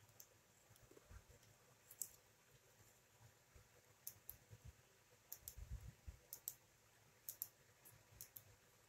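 Faint, scattered plastic clicks and taps as the Bandai Dango Mushi box crab figure's arm joints are worked by hand. The clicks are busiest in the middle, with a few soft handling bumps among them.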